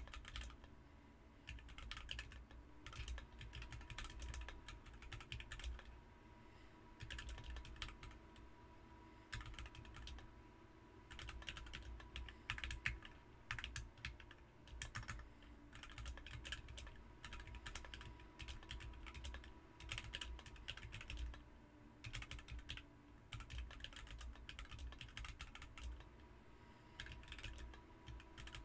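Typing on a BM43 40% hot-swap mechanical keyboard fitted with Ms Piggy switches: rapid key clacks in bursts of a second or two, with short pauses between them.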